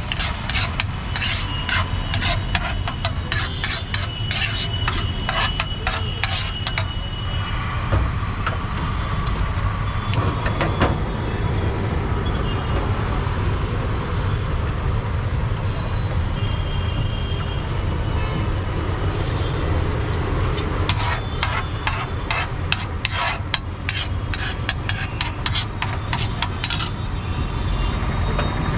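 Rapid clattering and tapping of utensils as a street vendor mixes and prepares chaat, in two long runs: one at the start and one from about three quarters in. A steady low rumble of traffic and engines runs underneath.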